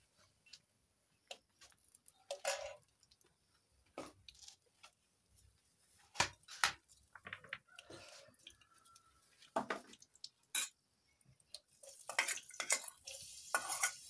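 Metal pots and bowls clinking and knocking against each other and the clay stove, in scattered separate strikes. Near the end a hissing sizzle starts as food goes into hot oil in the pot.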